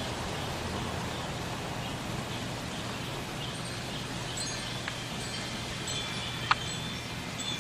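Wind chimes tinkling lightly over steady wind noise, the high ringing notes coming in about halfway through. A sharp click stands out near the end.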